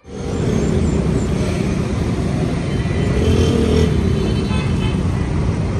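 Busy road traffic: motorcycles, cars and heavy vehicles passing in a steady, loud, low rumble of engines and tyres that starts suddenly.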